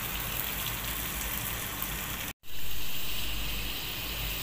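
Flour-coated potato pieces deep-frying in hot oil, a steady sizzle. It drops out for a moment a little over halfway through, then comes back louder and slowly settles.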